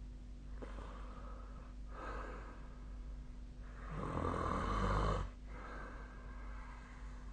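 A sleeping person snoring: three slow, noisy breaths, the loudest about four seconds in with a low droning tone.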